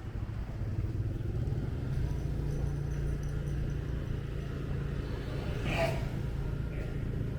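Motorbike engine running steadily under way, its note lifting a little about two seconds in, with street traffic around; a short burst of noise about six seconds in.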